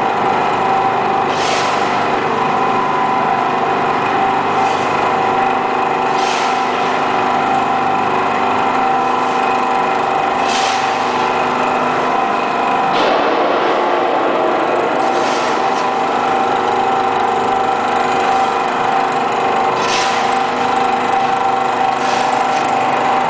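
Hydraulic metal scrap baling press's power unit running steadily, a constant hum with a steady whine. Every couple of seconds there is a short, hissy rattle as shovelfuls of steel shavings are tipped into the charging box.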